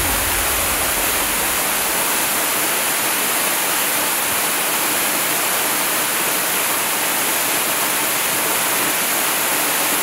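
Waterfall falling onto rocks: a steady, even hiss of rushing water.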